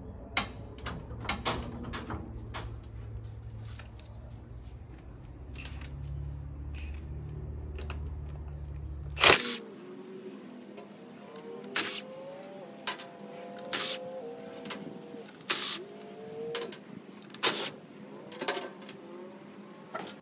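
Cordless impact wrench loosening the lug nuts on a car's rear wheel: a string of short, loud bursts every second or two in the second half, with the tool's whine and the nuts spinning between them. A low steady rumble runs under the first half and stops suddenly about nine seconds in.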